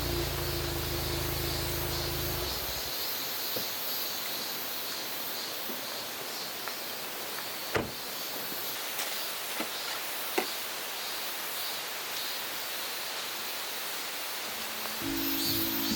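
Steady rush of a mountain stream, with a low hum under it for the first couple of seconds and a few sharp clicks, the loudest about eight seconds in.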